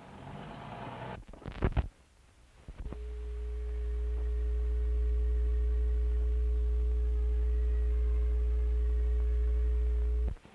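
A loud, steady low hum with a few fainter fixed tones above it, starting about three seconds in and cutting off suddenly near the end. Before it come a short stretch of noise and a few loud clicks.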